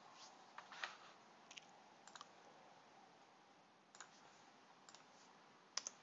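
Faint, scattered clicks of a computer mouse over low room hiss: a few in the first couple of seconds, another at about four seconds, and a sharper pair near the end.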